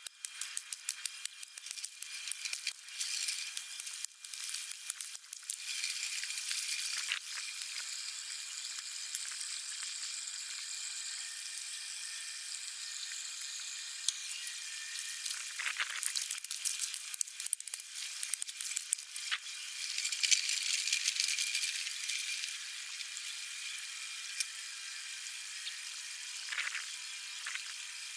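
Muddy puddle water trickling and hissing out through a freshly hoed channel in a dirt bank as the puddle drains. Over the first few seconds, a hoe blade chops and scrapes at wet soil in quick clicks.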